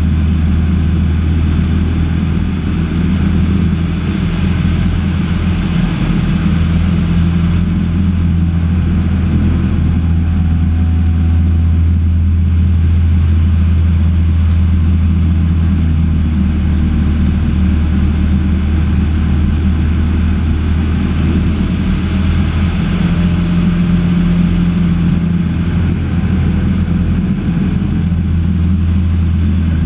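Cessna 152's four-cylinder Lycoming O-235 engine and propeller droning steadily in cruise, heard inside the cabin.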